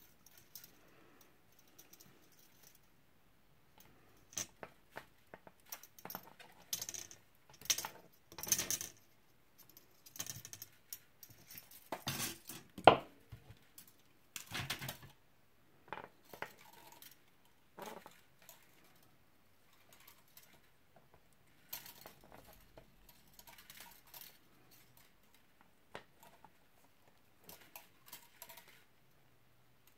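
Thin silver-plated copper wire being wrapped by hand around a thicker wire: irregular light metallic clicks, ticks and scraping, busiest and loudest in the middle stretch.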